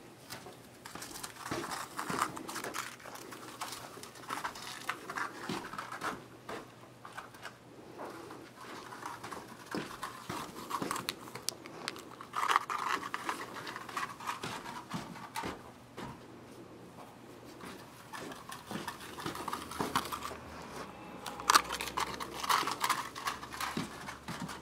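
Irregular rustling and scratching of a bundle of coarse warp yarn being handled and gathered through the hands, with small clicks and a quieter stretch partway through.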